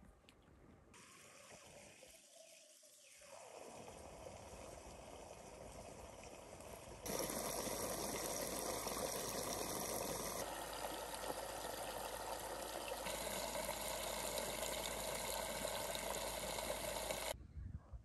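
A stream of water pouring and splashing down between two stones into a channel in the ground. It gets much louder about seven seconds in and cuts off suddenly near the end.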